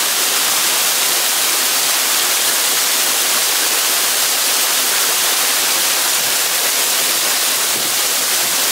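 Small waterfall pouring into a rock pool: a steady, even rush of water.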